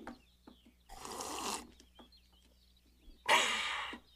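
A man drinking from a glass of water, making two breathy sounds: a shorter one about a second in and a louder one near the end.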